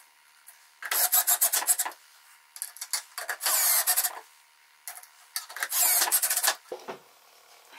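Cordless drill-driver driving screws through a metal toggle clamp's base into MDF, in three short runs of a second or so each with pauses between; the pitch glides during the second and third runs.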